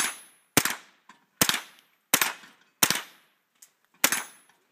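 H&K MP5 A5 .22 rimfire rifle fired in single shots at a steady pace, about six sharp cracks spaced roughly 0.7 s apart. Each crack has a short echo trailing off behind it.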